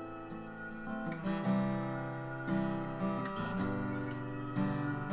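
Acoustic guitar strumming an instrumental song intro, changing chord every second or so.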